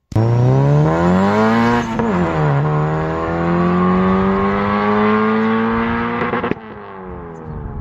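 Car engine accelerating hard under load, its pitch climbing, dropping for a gear change about two seconds in, then climbing again. At about six and a half seconds it backs off, quieter and falling in pitch.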